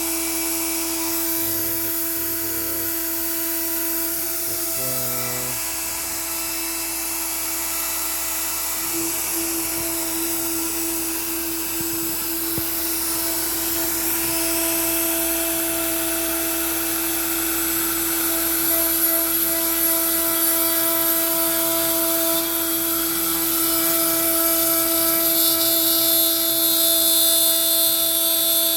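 Makita router on a CNC machine spinning at about 18,000 rpm with a 1/4-inch two-flute upcut bit, cutting pine at the factory feed of 60 inches per minute: a steady high whine over a hiss. It grows a little louder in the second half, with extra high tones near the end.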